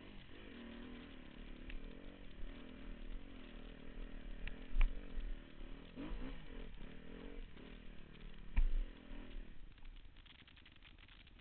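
2009 Husqvarna TXC 250 dirt bike engine revving up and down under load on a rough trail, with sharp knocks about five and eight and a half seconds in. Near the end the engine note fades away, leaving a light pattering rustle.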